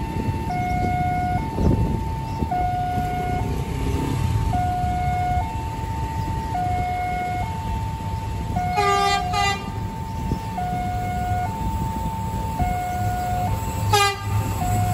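Railway level-crossing warning alarm sounding, an electronic two-tone signal alternating between a higher and a lower tone about once a second, warning of an approaching train. A horn sounds briefly about two-thirds through and again near the end as the train approaches, with the low rumble of the train starting to come in at the end.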